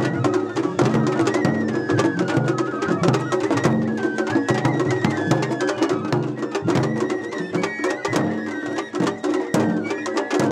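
Large barrel-shaped ōdaiko taiko drums beaten by children with padded sticks: a fast, steady run of deep drum strokes. A high melody of held notes plays over the drumming.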